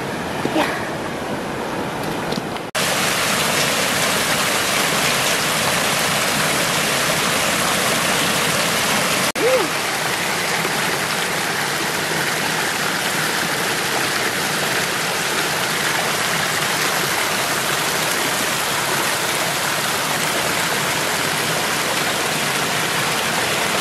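Stream water rushing over rocks: a steady rushing noise that jumps abruptly louder about three seconds in.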